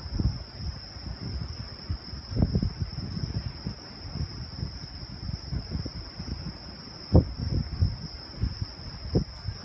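Steady, high-pitched chorus of night crickets, with irregular low rumbling gusts underneath.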